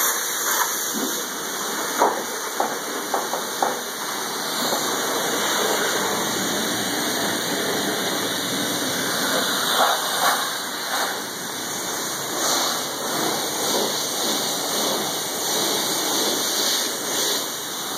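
High-pressure washer wand spraying water into a car's interior: a steady hiss of spray striking the seats, dash and windows, with a few sharper hits about two to four seconds in.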